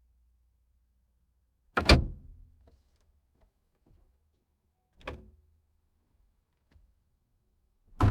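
Car door shutting three times, each a solid thunk as the latch catches. The loudest is a quick double hit about two seconds in, a softer shut comes around five seconds, and another lands at the very end, with a faint low hum between them.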